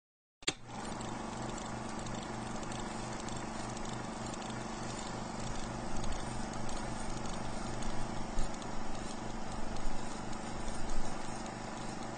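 Film projector running: a steady mechanical clatter with a fast, even low rhythm. It starts with a sharp click about half a second in.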